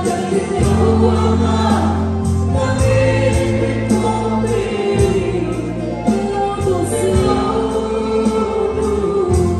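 Live gospel worship music: a woman singing lead into a microphone over a band with bass and drums, with the congregation singing along.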